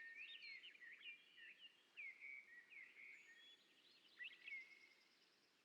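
Faint birdsong: a dense run of short, high chirps and warbles that thins out after about four and a half seconds.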